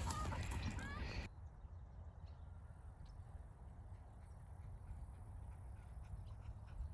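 Faint open-air ambience: a steady low rumble with scattered faint ticks. It follows a louder close-up stretch with a couple of short high chirps, which cuts off abruptly about a second in.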